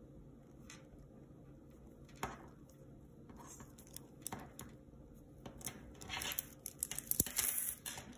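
Plastic pony beads clicking and rustling as fingers work a string through a beaded kandi cuff: scattered light clicks, busier and louder in the last couple of seconds.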